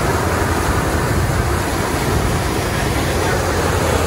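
A sportfishing boat's engines running steadily underway: a constant low drone under an even rush of wind and water from the wake.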